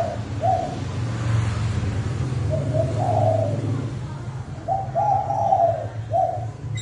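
Spotted dove (cu gáy) cooing in repeated phrases, the call of a lure bird used to draw in wild males: a short coo about half a second in, longer phrases around three and five seconds, and a short note near the end. A steady low hum runs underneath.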